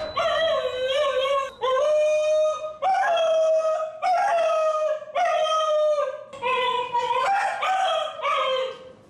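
Cocker spaniel howling over and over, a run of about eight long wailing howls of roughly a second each: the separation-anxiety howl of a dog left alone, which sounds almost like a human scream.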